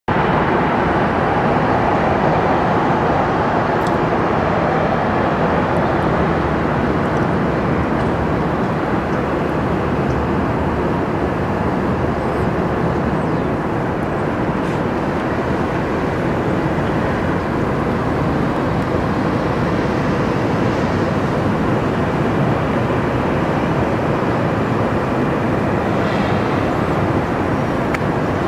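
Boeing 747-400's four jet engines running steadily at low taxi power as the airliner taxis toward the runway, a constant even rumble with no change in thrust.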